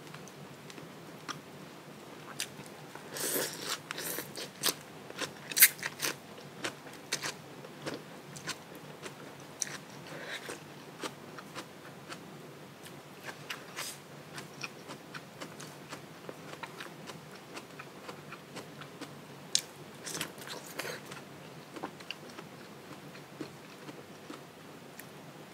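A person eating: irregular bites and crisp crunches with chewing in between, thickest about three to seven seconds in and again around twenty seconds in.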